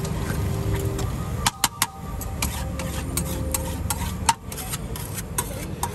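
Metal spatula clacking and scraping on a large flat tawa griddle as pav bhaji is stirred. Sharp clicks come at irregular intervals, with a quick cluster about a second and a half in and one loud clack a little past four seconds, over a steady low rumble.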